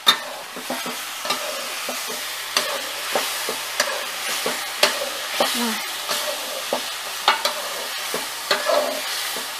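Chicken wings in sauce being stirred in a pot over a campfire: a utensil scrapes and knocks against the pot at irregular intervals over a steady sizzle.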